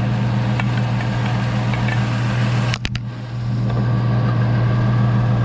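Infiniti G35's V6 engine idling steadily with the air conditioning running while the system is being recharged with refrigerant. A brief cluster of sharp clicks about three seconds in.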